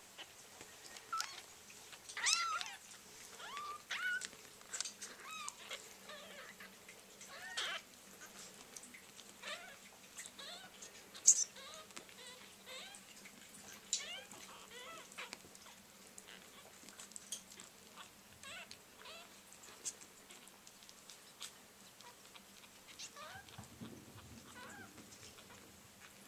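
A litter of newborn kittens mewing: many short, high-pitched squeaky mews, busiest in the first ten seconds and thinning out after. One sharper, louder sound comes about eleven seconds in, and there is a soft low rustle near the end.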